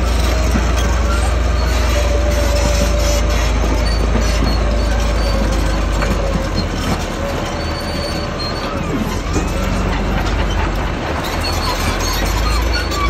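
Caterpillar D6C crawler dozer working under load: the diesel engine runs with a deep rumble while the steel tracks clank and squeal as the blade pushes rock. The low engine rumble eases about six seconds in.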